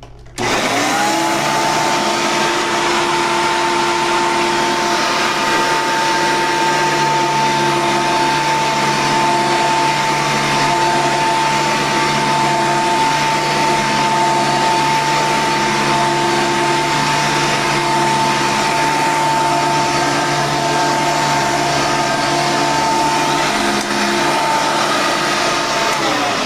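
Hoover upright vacuum cleaner switched on, its motor spinning up within a second to a steady high whine with a loud rush of air. Near the end the whine starts to drop in pitch.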